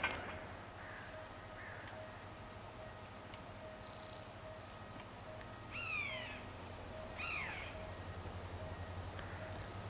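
Low, distant running of an approaching GM diesel-electric locomotive, its rumble growing louder and pulsing near the end. A bird calls twice past the middle, each a short falling call.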